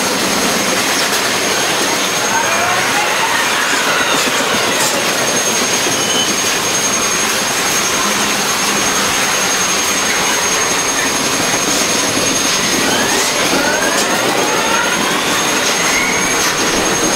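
Double-stack intermodal container train's well cars rolling past close by: a steady, loud roar of steel wheels on rail. High whines from the wheels glide up and down in pitch twice, a few seconds in and again near the end.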